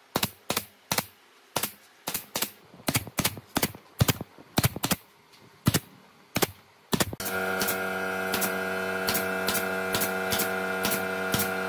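Pneumatic brad nailer firing into pine slats: sharp shots in quick succession, irregularly about three a second. About seven seconds in, a steady hum with several tones starts underneath while the shots go on.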